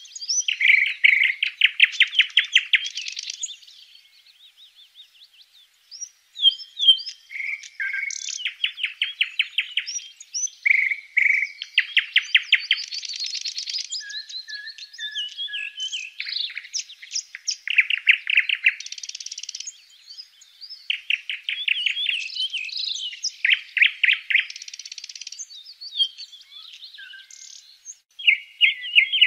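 Tit nestlings begging in the nest box: repeated bursts of rapid, high chirps, each burst a second or two long, coming again and again with short gaps.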